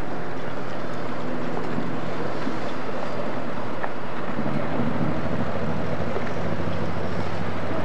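Steady low machinery hum of the passing Great Lakes freighter Kinsman Enterprise, with wind rushing on the microphone; the hum changes pitch about four seconds in.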